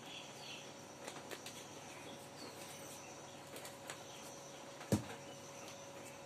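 Faint steady room hum with scattered light ticks and one sharp knock about five seconds in, and a few short, faint chirps at the very start.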